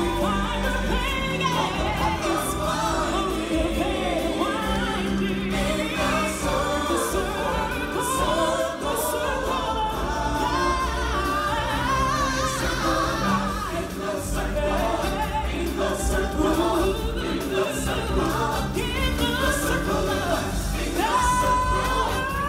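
Live stage-show music: a group of singers, chorus and solo voices, singing over a full musical backing, heard from the audience.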